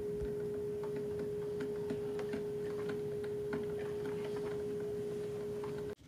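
A steady pure tone runs over faint, irregular ticking and crackling from a Proctor Silex drip coffee maker heating and brewing; both cut off abruptly just before the end.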